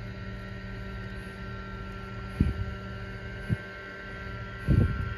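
A steady low hum with a thin higher tone over it, broken by two short soft knocks and a louder low thump near the end.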